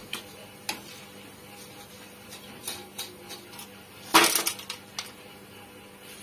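Crisp deep-fried rice-flour chegodi rings clattering in a wire spider strainer and against a metal tray, a hard dry rattle ('galagala') that shows they are fried crisp. A few light clicks, then a loud burst of rattling about four seconds in as they are tipped into the tray.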